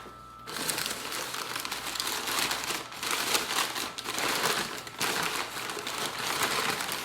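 Packing material crinkling and rustling as motor mounts and their hardware are unpacked from the box by hand, starting about half a second in.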